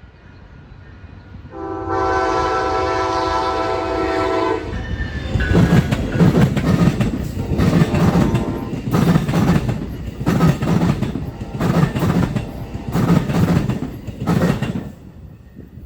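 A train horn sounds one long chord for about three seconds. Then a train passes close by, its wheels clattering over rail joints in a steady beat about once a second. The sound cuts off abruptly near the end.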